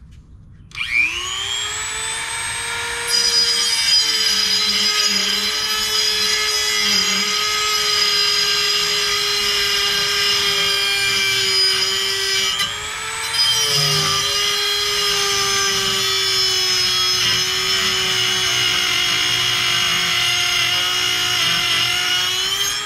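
Dremel rotary tool spinning up about a second in, then running with a steady high whine as its grinding attachment grinds a metal headlight-bulb retaining clip held in a vise, throwing sparks. The pitch and level sag briefly near the middle under load.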